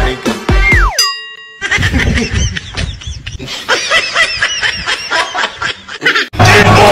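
A beat of electronic music stops about a second in with a falling whistle-like glide. Then a group of students laughs and shrieks in many overlapping voices for several seconds, until loud music cuts back in near the end.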